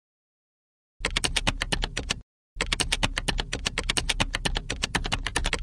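Typing sound effect: rapid key clicks, about ten a second, in two runs with a brief pause between them, starting about a second in.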